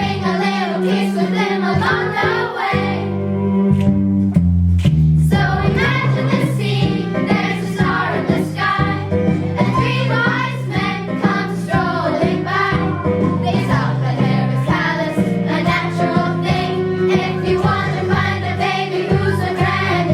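A song with voices singing over instrumental accompaniment and a steady bass line, in the style of children's music.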